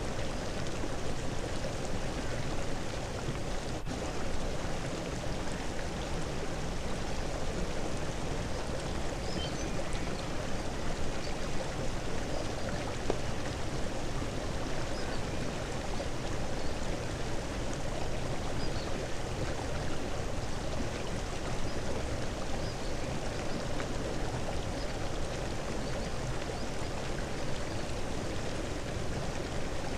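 A steady rushing noise, like running water, that goes on without a break.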